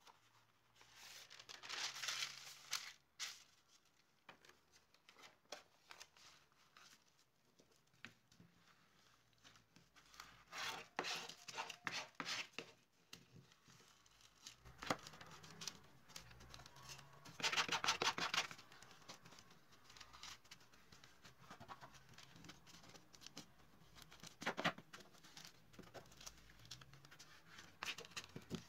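Decorative paper being handled and rubbed down onto bookbinding board: rustling, crinkling and rubbing in irregular bursts, with a few light clicks. The loudest bursts come about two seconds in, around eleven to twelve seconds in and around eighteen seconds in.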